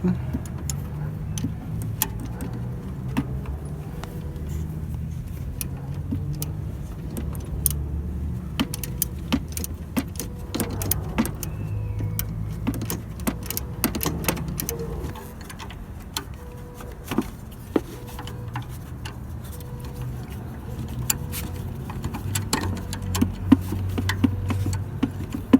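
Metal hand tools clinking and tapping against the engine's belt and alternator hardware under a car's hood, working on the loose alternator belt, over a steady low rumble.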